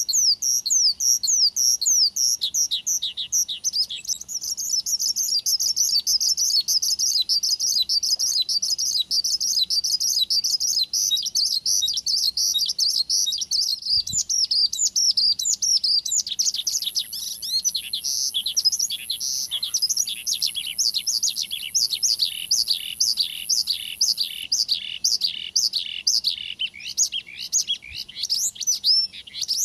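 Javan bush lark (branjangan) in full song: a long, unbroken stream of rapid high chirps and trills. From about halfway the notes become a fast run of downward-sweeping whistles, about three a second, with a thin high buzz behind them for several seconds.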